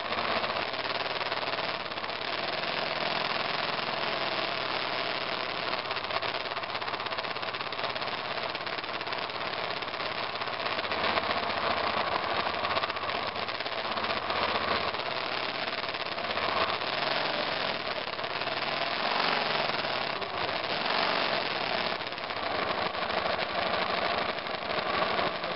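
BMW F 650 GS Dakar's single-cylinder engine running on a rough trail, its pitch rising and falling with the throttle.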